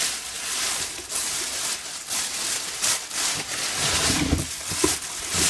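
A thin plastic bag rustling and crinkling as it is grabbed and pulled about by hand, with a few soft knocks of the contents shifting near the end.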